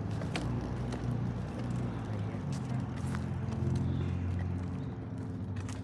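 A motor vehicle's engine running, a low steady rumble whose pitch shifts a little now and then, with a few sharp clicks.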